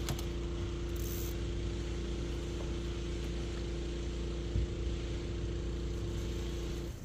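A small motor running with a steady hum: one even tone over a low drone, which starts and cuts off abruptly. A dull thump about four and a half seconds in.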